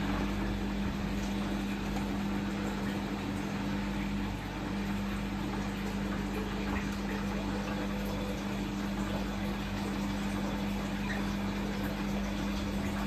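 Siemens Siwamat XS 1060 front-loading washing machine between its rinse and spin: a steady pump hum, typical of the drain pump emptying the rinse water, while the drum turns the wet laundry. The hum dips briefly about four seconds in.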